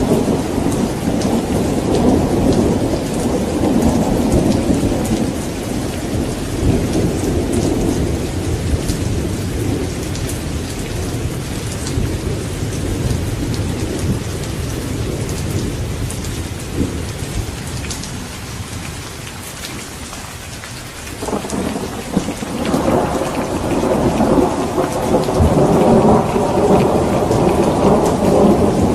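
Steady rain with rolling thunder. One rumble fades over the first several seconds; after a quieter spell a new roll of thunder breaks in sharply about three-quarters of the way through and grows louder.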